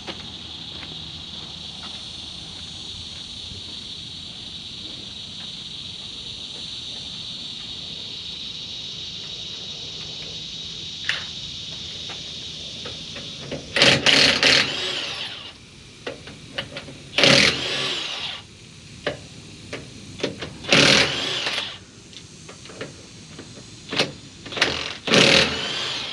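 Cordless DeWalt 20-volt 1/2-inch drive impact wrench hammering lug nuts loose on a truck wheel, in four loud bursts of a second or so each during the second half. A steady high buzz runs in the background before the bursts.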